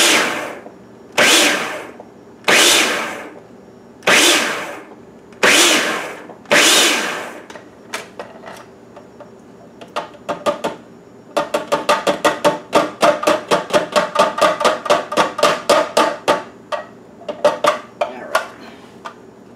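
Food processor pulsed in about six short bursts, a little over a second apart, chopping salsa vegetables. Later comes a fast run of clicking and scraping with a ringing tone as a glass bowl is scraped out into the processor.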